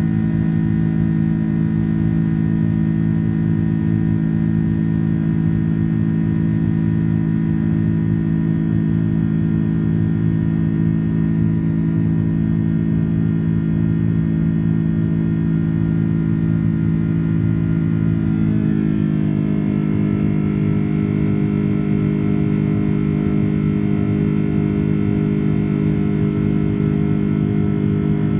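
Airbus A330 jet engines droning steadily, heard inside the cabin as a loud hum of several steady tones. About two-thirds of the way through, the tones step down slightly in pitch and change character.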